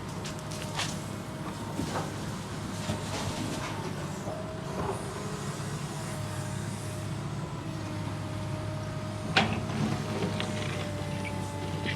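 Heavy construction machine's diesel engine running steadily, with a wavering whine above it. Several sharp metallic knocks come through it, the loudest about nine and a half seconds in.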